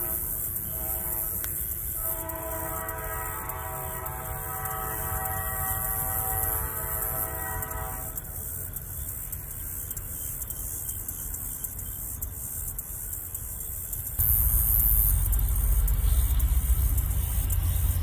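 Diesel locomotive air horn sounding a short blast that ends about a second in, then a long blast from about 2 to 8 seconds, as the train approaches a grade crossing. After that comes a low rumble from the approaching train, which turns suddenly louder about 14 seconds in.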